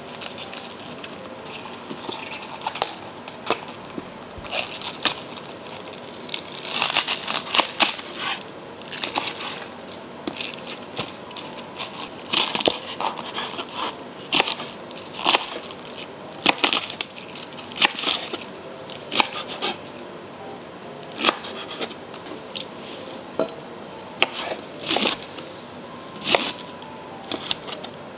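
Large kitchen knife chopping fresh cabbage leaves on a wooden cutting board: crisp crunching cuts with the blade knocking the board, in short irregular runs of strokes. Near the start, leaves are pulled off the cabbage head.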